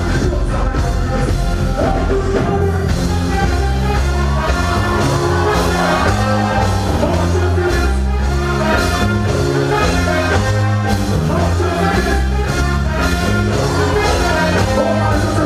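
Live reggae-dancehall band playing, with a heavy repeating bass line and a steady drum beat.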